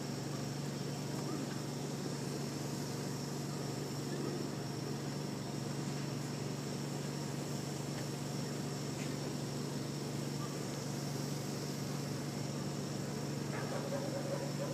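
Steady outdoor background: a constant low hum with a high, even insect chirring over it, unchanging throughout.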